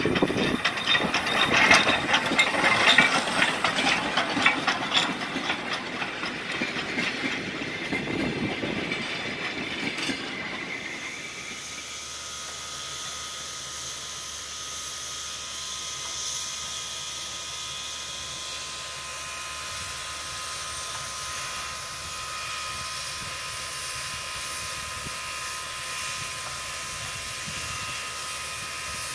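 Soviet L-class steam locomotive L-3051: for about the first ten seconds a loud, rapid clatter of the engine and its running gear on the track, then a steady hiss of escaping steam with a few faint whining tones.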